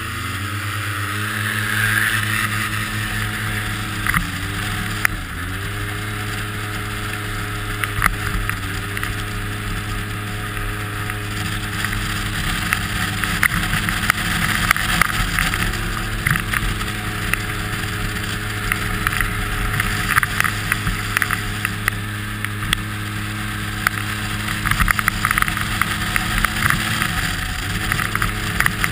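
Polaris RZR 800 side-by-side's twin-cylinder engine running at steady revs as it drives on ice. Its pitch dips briefly about five, fifteen and twenty-seven seconds in, over a steady hiss with scattered ticks.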